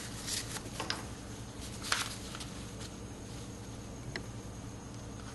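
Tissue paper rustling and rubbing as ink is wiped off a carved stone seal: a few short scrapes, the strongest about two seconds in, then a light click a little after four seconds, over a steady low hum.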